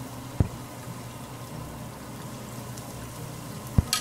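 Battered banana fritters frying in hot oil in a wok, the oil bubbling steadily while thin batter is drizzled in. There are two dull knocks, about half a second in and near the end, and right at the end there is a sharp burst of sizzling as more batter hits the oil.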